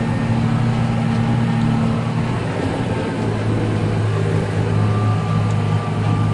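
Diesel engine of harvest machinery running steadily under load, its hum dropping slightly in pitch about three seconds in.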